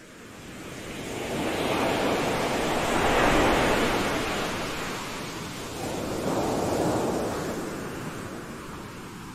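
Ocean surf rushing up a beach: a steady wash of noise that swells to a peak about three seconds in, eases, and swells again about seven seconds in before falling back.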